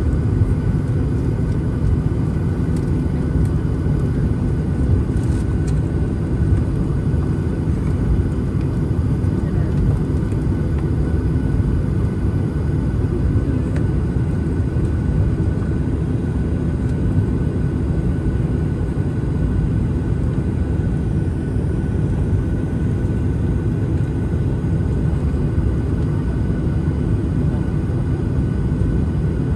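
Steady cabin noise of a Boeing 737-900ER: its CFM56-7B jet engines running and air rushing past the fuselage, a loud, even low rumble with a faint high whine.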